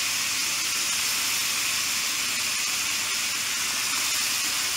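Raw ground beef with diced onion and green bell pepper sizzling in a hot skillet: a steady, even hiss.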